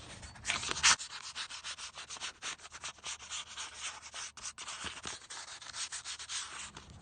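Fine 320-grit sandpaper rubbed over a car's bare metal repair patch in quick back-and-forth strokes, a scratchy hiss. This is the fine sanding pass that smooths the surface before primer.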